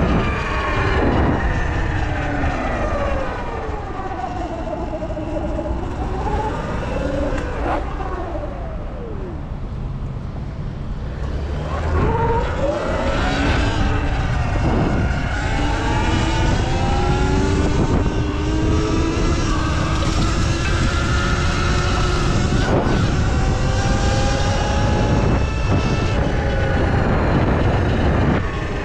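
A Sur Ron X electric dirt bike's motor whining as it rides, the pitch rising and falling with speed. Wind rumbles on the microphone underneath.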